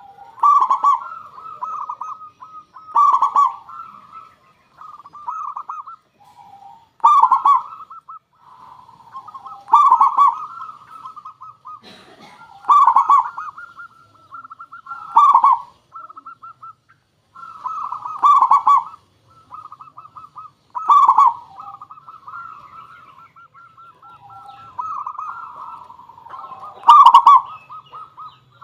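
Zebra dove (perkutut) cooing: rapid, staccato trilled coo phrases, loud ones every two to three seconds with softer cooing between.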